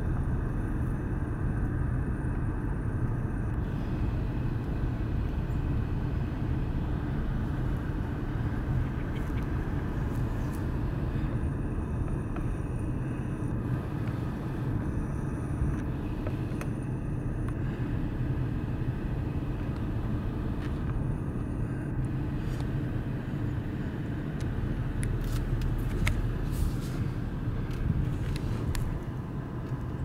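Steady low rumble of a car's engine and cabin noise, heard from inside the car.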